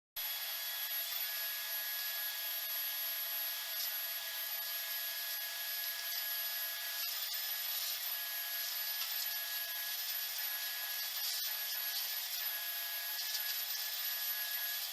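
Vacuum cleaner running steadily with a high motor whine, starting abruptly as the sound cuts in.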